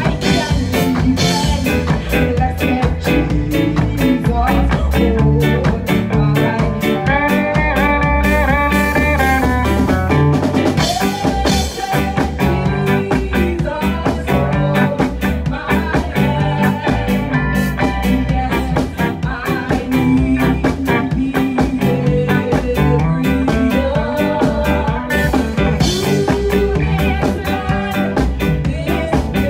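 Live band playing a gospel song: electric guitar, five-string electric bass and a drum kit with cymbals, with a steady beat and melodic lines over it.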